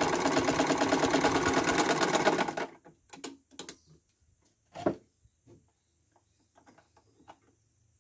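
Sewing machine stitching at a fast, even rate, stopping abruptly about two and a half seconds in. A few light clicks and knocks follow.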